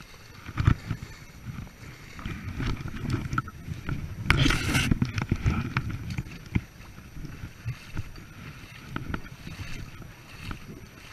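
Feet wading and splashing through a shallow, rocky stream, with irregular thuds and scuffs from the steps. A louder rush of splashing comes a little over four seconds in.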